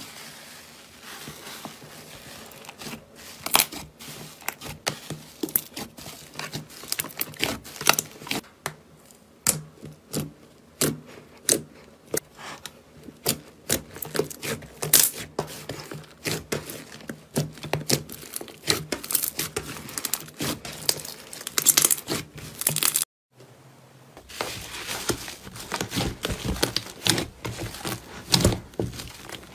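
Slime being pressed, stretched and kneaded by hand: a dense run of sharp crackles and pops, broken by a short silence about 23 seconds in.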